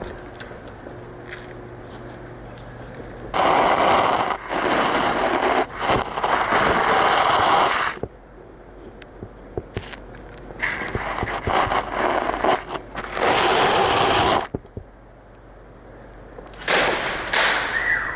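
Long bursts of rapid automatic airsoft gunfire, each about four seconds, twice, with short breaks inside them, and a shorter burst near the end.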